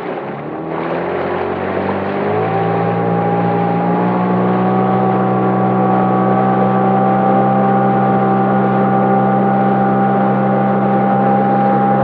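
Motorboat engine picking up speed over the first couple of seconds, its pitch rising, then running steadily at that speed.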